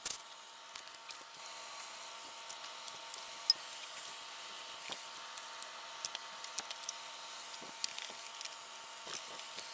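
Scattered light clicks and rattles of plastic connectors and clips as an engine wiring harness is unclipped and pulled loose by hand, over a faint steady hiss; one sharper click about three and a half seconds in.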